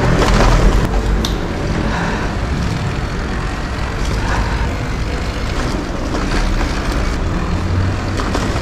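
Steady wind rumble on the microphone and tyre and road noise from an electric-assist bicycle being ridden along city streets.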